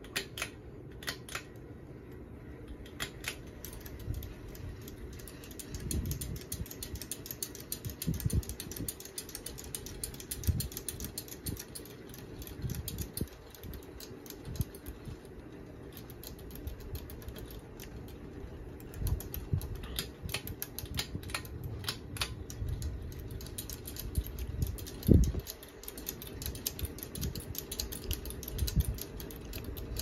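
Hampton Bay Genoa ceiling fan running, blades spinning, with a fast clicking rattle over its hum. Several low thumps come through as the housing is handled, the loudest late on.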